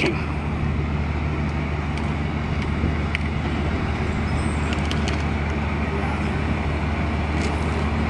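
Steady low engine drone of a docked cargo ship's machinery while its deck crane holds a lifted tank container, with a few faint clicks.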